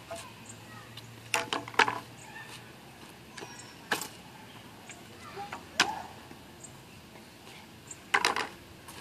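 White tube frame of a portable tennis backboard being taken apart by hand: sharp clacks and knocks of hollow tubes pulled apart and set down, a few at a time, spread through.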